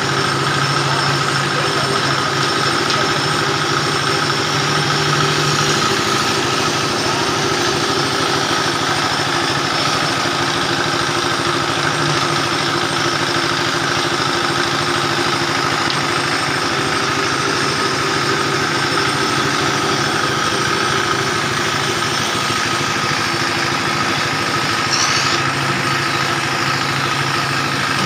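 A dowel machine driven by a 10 HP diesel engine, running steadily while wooden strips are fed through its cutter heads and shaved into 19 mm broom-handle dowels.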